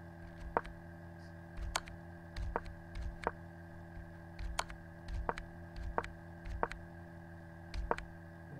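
A series of about nine sharp clicks, irregularly spaced a little under a second apart, one for each move as a chess game is stepped through on a computer, over a steady electrical hum.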